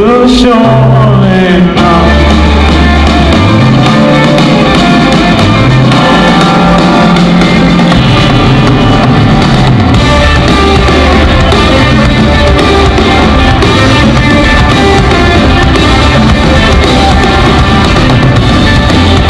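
Live rock band playing loud, with electric guitars, bass and drums and a bass line that moves from note to note.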